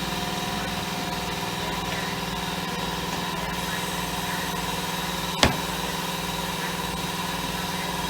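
Steady mechanical hum of a running machine, with an even low pulsing, and a single sharp click about five and a half seconds in.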